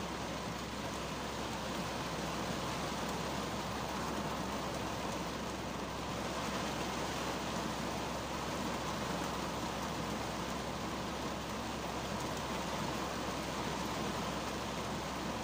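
Heavy rain falling on a 2010 Kia Cerato's windshield and roof, heard from inside the closed car: a steady, even hiss of rain with no pauses.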